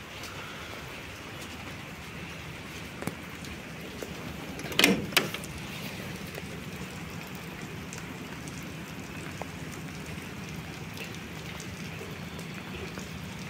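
Heavy rain falling steadily. A couple of sharp knocks sound close together about five seconds in, with a fainter click a little before.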